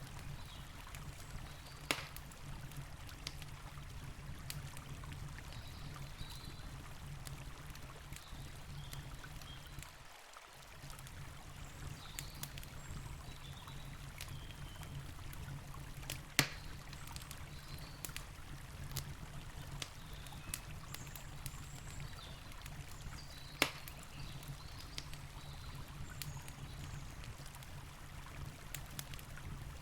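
Campfire crackling, with scattered sharp pops, three of them much louder than the rest, over the steady low rush of a flowing river.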